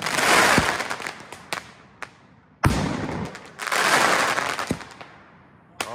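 H.C.M.F. 7-inch canister shell fireworks bursting in the air. A loud wash of crackling fills the first second, a sharp bang comes about two and a half seconds in with another wave of crackling a second later, and a further bang lands near the end.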